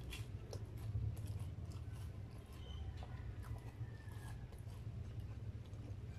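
A person chewing food, with scattered small wet clicks and smacks over a steady low hum.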